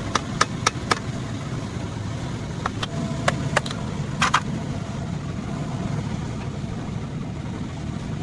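An engine running steadily at idle, with about ten sharp clicks or taps in the first half, the last a quick double tap.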